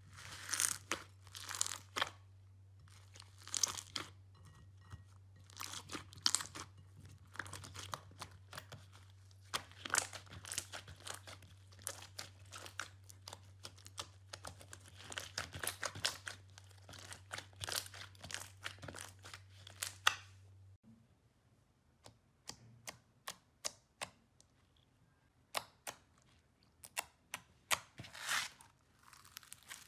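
Sticky, wet crackling and small air pops of thick green slime being stretched and kneaded by hand, over a low steady hum. About two-thirds of the way through the hum stops and the sound turns to sparser, separate crunchy crackles of foam-bead slime (floam) being pressed and squeezed.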